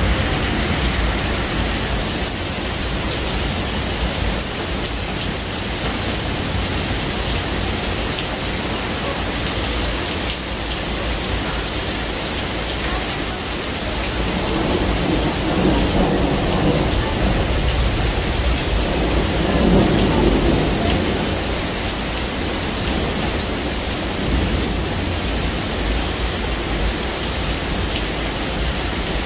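Steady rain falling, with two low rumbles of thunder swelling up around the middle.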